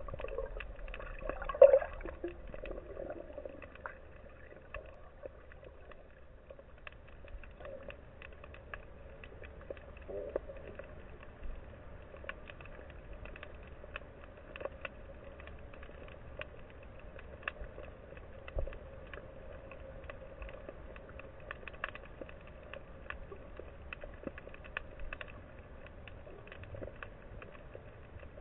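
Underwater ambience picked up by a submerged camera: a steady muffled hum with many faint scattered clicks. There is one louder bump about two seconds in.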